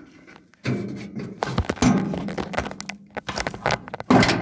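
Clunks, knocks and metal rattles as the hood of an old Ford F6 truck is unlatched and lifted. They start a little under a second in, with a louder clunk near the end.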